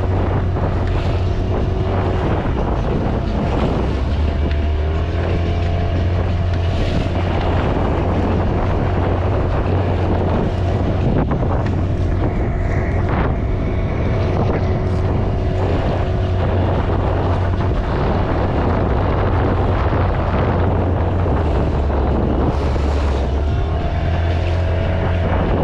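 Boat motor running steadily, with wind on the microphone.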